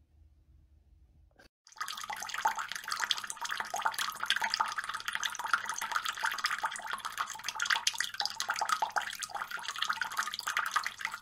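Water trickling from the spout of a pet drinking fountain into its reservoir, starting about a second and a half in, with a faint steady low hum under it.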